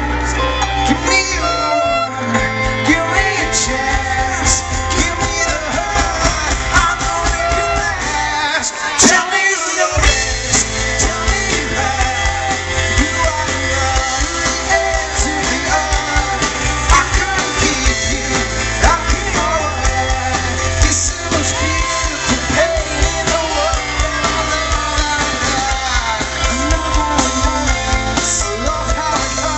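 Rock music with a singer and guitar, played loud; the bass drops out for about a second around nine seconds in.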